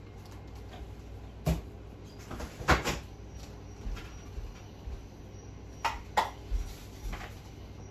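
A handful of scattered knocks and clunks of objects being handled, the loudest nearly three seconds in, over a low steady hum.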